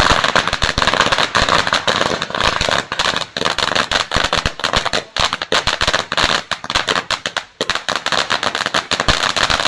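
Golden strobe fountain firework spraying sparks: a steady loud hiss packed with rapid, irregular crackling pops from its strobing stars.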